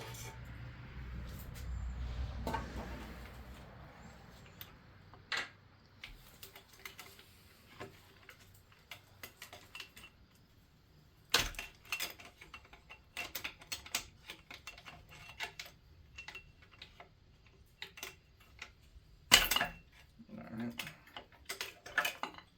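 Metal engine parts and tools clinking and knocking as a V8 is taken apart, with a low scraping rumble in the first few seconds and one loud clank about 19 seconds in.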